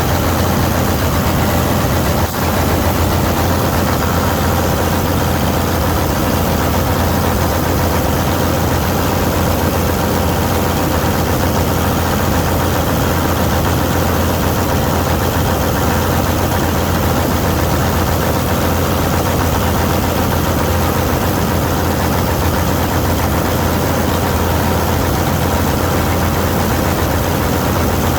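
Vistula KZB-3B combine harvester running steadily while cutting grain: a constant low engine drone with the rattle of the threshing machinery over it. A short knock comes about two seconds in.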